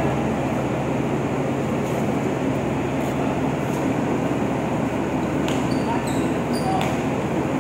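Steady drone of a ship's machinery filling a steel cargo deck, with a basketball bouncing on the steel floor now and then and sneakers squeaking a few times near the end.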